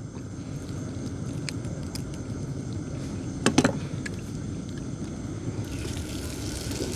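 A small boat engine running steadily with a low rumble, with one brief louder sound about halfway through.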